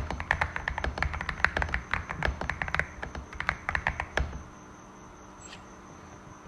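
Typing on a Cidoo V65 mechanical keyboard with Glorious Panda 67 g tactile switches, foam-, tape- and polyfill-modded: a quick run of keystrokes that stops about four seconds in, leaving a faint steady hum.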